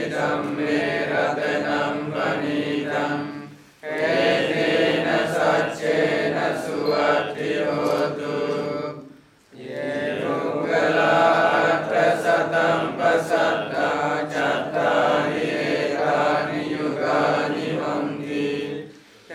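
A group of Buddhist monks and nuns chanting Pali verses together in unison. Many voices hold a steady recitation, broken by short pauses for breath about four seconds in, again around nine seconds in, and just before the end.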